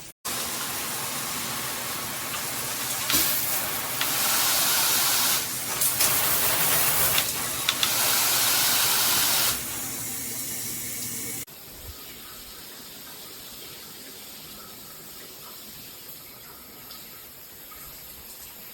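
Water spraying hard from a handheld shower head, getting louder in steps partway through, then cut off sharply about two-thirds of the way in, leaving a fainter steady hiss.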